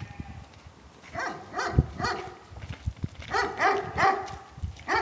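A dog barking in short yips, in two clusters: three about a second in, then four more from about three seconds. A dull thump comes just before two seconds in.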